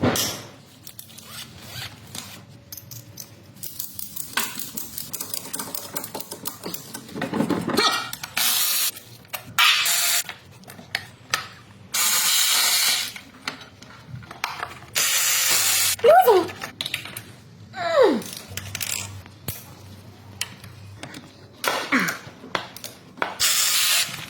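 Repeated hissing spray bursts, each about a second long and starting and stopping abruptly, with tool clicks and scraping between them during motorcycle steering head bearing work. A few short falling squeaks come in the second half.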